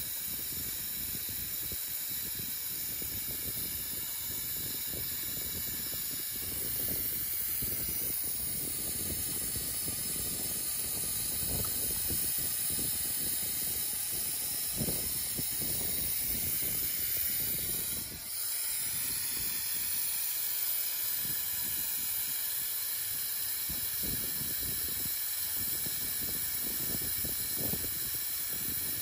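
A steady hiss with faint wavering whistle tones above it. It grows a little louder about six seconds in and dips briefly about two-thirds of the way through.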